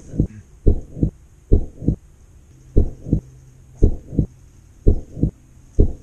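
Heartbeat sound: paired low lub-dub thumps, about one pair a second.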